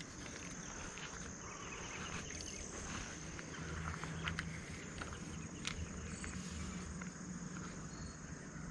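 Insects chirring in a steady high-pitched drone, with a few faint clicks and rustles.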